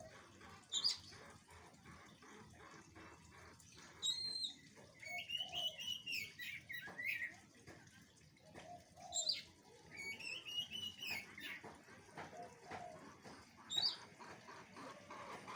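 A bird chirping in short phrases of quick rising and falling notes, with louder bursts around the middle and again near the end. A string of faint rapid clicks runs through the first few seconds.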